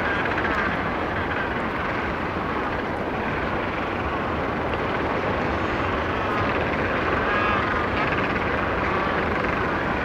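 Macaroni penguin colony: a steady din of many birds with the distant sea behind it. A few nearer individual penguin calls, pitched and warbling, stand out just after the start and again around six to seven and a half seconds in.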